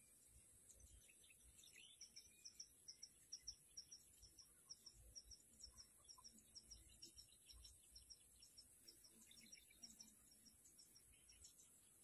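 Faint natural ambience: an even series of short, high chirps, about three a second, begins about two seconds in over a steady high hiss.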